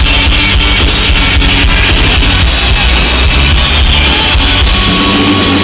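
Rock band playing live, electric guitars, bass and drums in an instrumental passage with no singing, loud.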